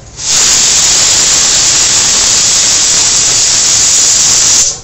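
A loud, steady hiss with no pitch to it, starting abruptly and cutting off abruptly after about four and a half seconds.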